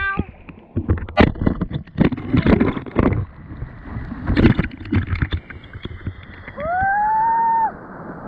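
Sea water splashing and gurgling around a surfboard and the action camera close to the water as the board is paddled and pushed through choppy surf, in uneven bursts. Near the end a loud held tone rises and then holds steady for about a second.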